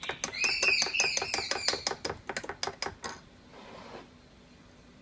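Spoon stirring instant coffee in a ceramic mug, clinking quickly against the inside about seven times a second with a light ringing, to dissolve the powder in hot water; the stirring stops about three seconds in.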